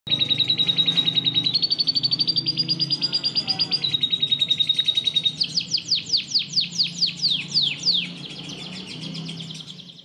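Canary singing: a rapid, even trill that steps up in pitch after about a second and a half and back down near four seconds, then a run of quick falling whistles, about four or five a second, fading out near eight seconds.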